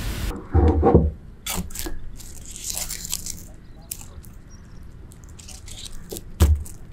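A steady hiss of hot oil cuts off sharply just after the start. Then comes close-up handling of crisp fried chicken skewers on a paper towel: dull knocks about half a second in and again near the end, with crunchy rustling and a wet squish as a thick mayonnaise sauce is spooned over them.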